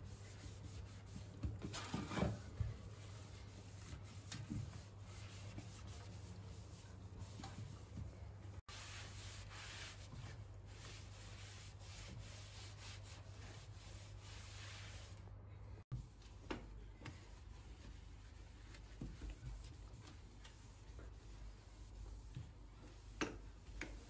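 A cleaning cloth rubbing as it wipes over a stainless steel sink and other kitchen surfaces, with a few light knocks. The sound breaks off abruptly twice.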